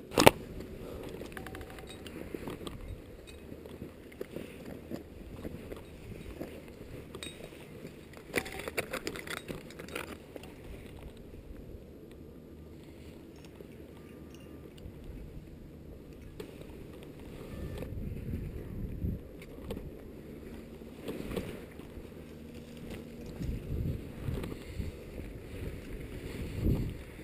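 Wind rumbling over an action camera's microphone, swelling in gusts in the second half, with a sharp knock at the start and a few clattering knocks about eight to ten seconds in.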